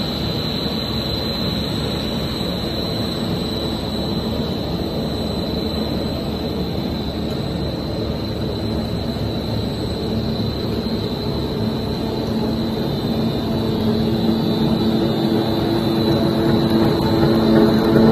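PP strap extrusion line running: a steady machine drone with a thin high whine over it. About halfway through, a lower steady hum joins and grows louder toward the end, near the strap rollers.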